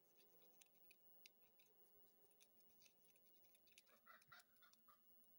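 Near silence, with faint, scattered light clicks of a brush handle mashing rouge and borax paste in a small container, and a few faint chirps about four seconds in.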